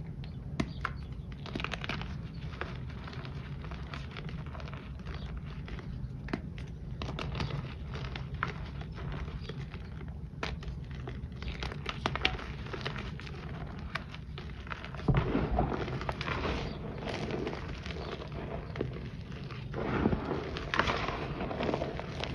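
Hands crushing reformed powder shapes into chunks, a crunchy crumbling made of many small irregular crackles, growing louder and denser about two-thirds of the way in and again near the end.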